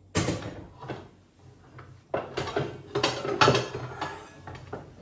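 Metal wire pan rack and cookware being handled on a countertop: clattering and rattling, with a sharp knock just after the start and a busier run of clatter from about two to four and a half seconds in.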